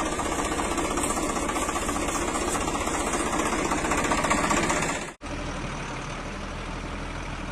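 Tractor-type engine running with a fast even beat, cut off about five seconds in and replaced by a quieter, steadier running sound.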